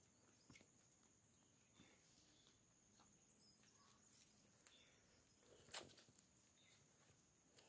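Near silence: faint outdoor background with a steady high-pitched insect drone and a few soft footstep clicks, the loudest about six seconds in.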